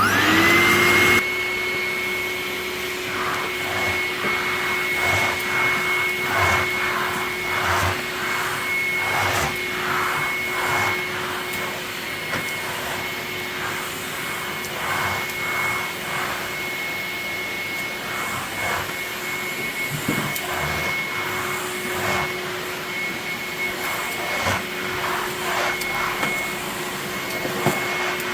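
Polivac Wombat commercial bagged vacuum cleaner switched on, its motor spinning up to speed within about a second and then running steadily with a high whine and a lower hum. The rush of air swells and fades irregularly throughout.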